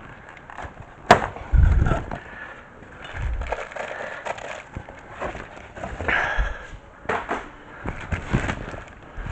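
Cardboard box and plastic bag rustling as a new brake rotor is lifted out of its packaging, with a sharp knock about a second in and scattered handling thumps.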